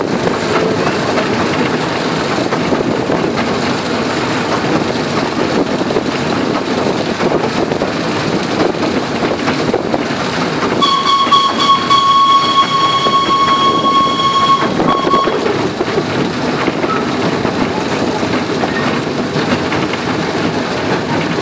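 Miniature railway train running along the track with a steady rumble and clatter of the carriage wheels. About halfway through, the locomotive sounds one long, single-pitched warning hoot lasting about four seconds, which then cuts off.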